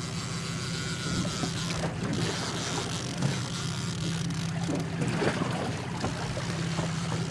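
Boat's outboard motor idling with a steady low hum, under wind and water noise.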